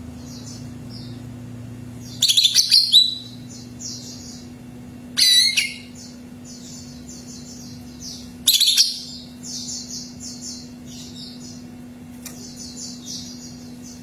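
Cucak ijo (green leafbird) singing: three loud ringing phrases about two, five and eight and a half seconds in, between quieter rapid high chirping phrases that keep repeating. A steady low hum runs underneath.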